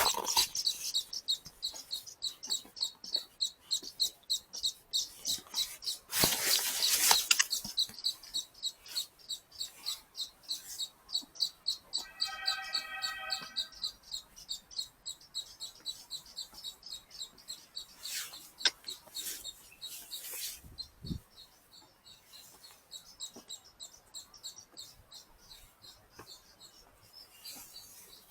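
A bird chirping steadily, short high notes repeated about two to three times a second, fading away after about twenty seconds. A short buzzy call about halfway through.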